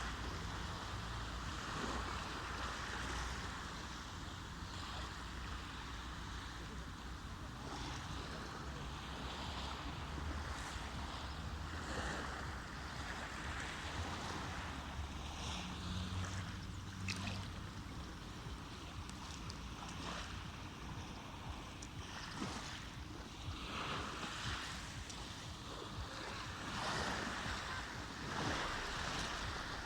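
Sea waves washing, with wind buffeting the microphone and a low rumble underneath; the level swells and eases every few seconds.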